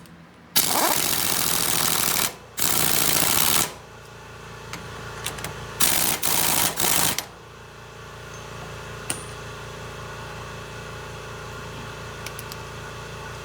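Impact wrench running the 30 mm castle nut onto the hub: two bursts in the first few seconds, then a third, stuttering burst about six seconds in. A steady machine hum continues underneath afterwards.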